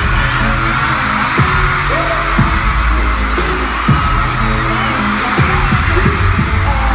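Live hip-hop track with a heavy bass beat, kick drum hits about every one to one and a half seconds, and a rapper's amplified voice over it, with a crowd of fans screaming throughout.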